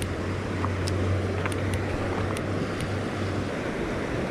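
Steady rush of flowing creek water, with low wind rumble on the microphone and a few faint ticks.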